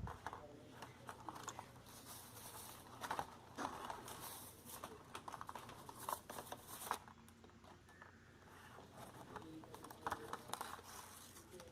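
Headphone retail packaging being opened and handled by hand: faint, irregular rustling, scraping and small clicks of cardboard and plastic.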